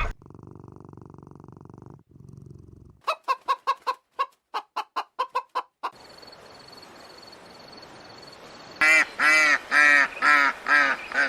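Chickens clucking: a run of quick short clucks at about four a second, then, near the end, about six loud drawn-out clucks in a row.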